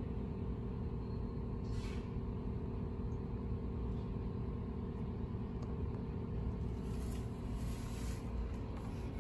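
Steady low mechanical rumble and hum, with a short hiss about two seconds in and a longer hiss around seven to eight seconds in.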